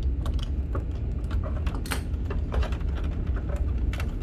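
Hose clamps being worked off the hoses inside a water ionizer: a string of small, irregular clicks and taps of plastic and metal parts being handled, over a steady low rumble.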